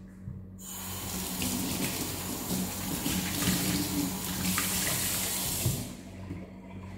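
Kitchen mixer tap running into a stainless-steel sink while a cloth is rinsed and wrung under the stream. The water comes on about half a second in, runs steadily for about five seconds, and is shut off abruptly about a second before the end.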